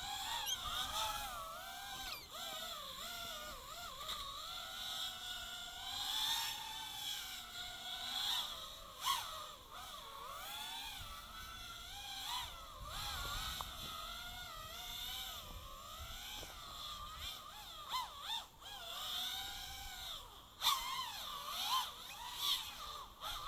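FPV racing quadcopter's brushless motors whining in the distance. The pitch keeps rising and falling as the throttle changes while it flies around.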